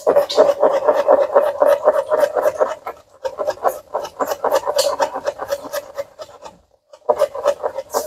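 Knife chopping rapidly on a plastic cutting board, mincing garlic, in quick runs of knocks with short pauses about three seconds in and again near the end.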